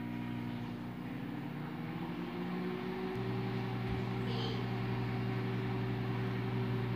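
Countertop microwave oven running with a steady hum while it heats a bowl of marshmallows to melt them, cutting off right at the end.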